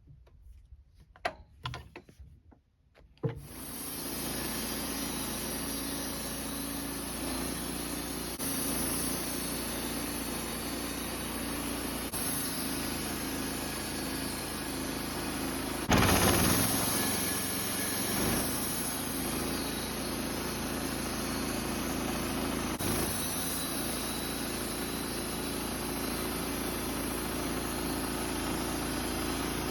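Woodmizer LT15 sawmill's engine starting after a few clicks about three seconds in, then running steadily, with a louder surge about halfway through.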